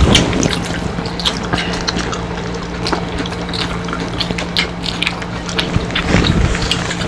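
Close-up eating sounds: chewing, wet lip smacks and fingers picking at crispy fried tilapia, a scatter of small sharp clicks over a steady low hum.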